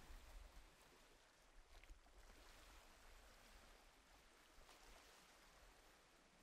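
Near silence: a faint steady hiss with a low rumble underneath.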